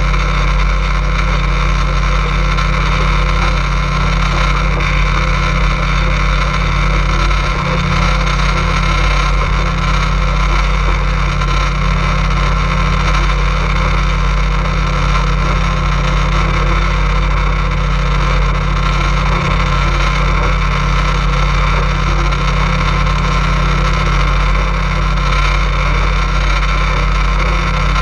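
Motorboat engine running steadily under way, a constant low drone that holds the same pitch throughout.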